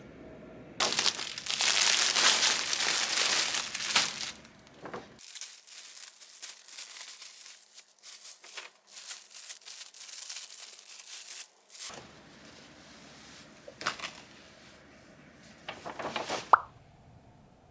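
Crinkling and rustling of something being handled, like paper or plastic packaging, in several separate stretches, heaviest in the first few seconds, with a sharp click near the end.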